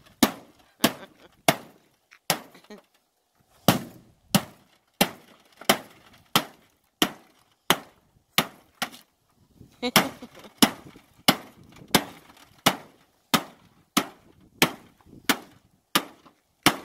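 Wooden baseball bat striking a flat-screen TV over and over, each blow a sharp crack as the screen panel breaks. About three blows every two seconds, with a short pause about three seconds in.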